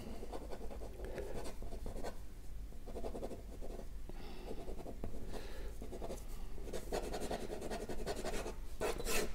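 Ballpoint pen scratching on drawing paper in quick, irregular hatching strokes, going over a sketch's lines to darken them.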